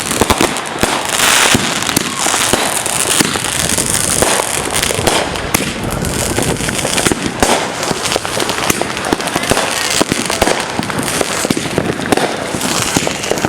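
A 1,000-count string of firecrackers going off in a rapid, continuous crackle of small bangs.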